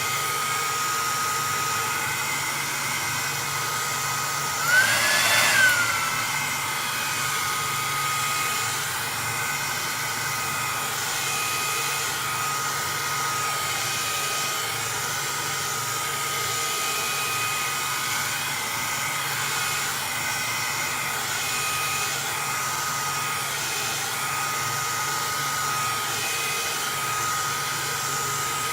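Electric hot-air blower running steadily while it heats a PlayStation 3 motherboard during a red-light-of-death repair. About five seconds in there is a brief louder whine that rises and falls in pitch.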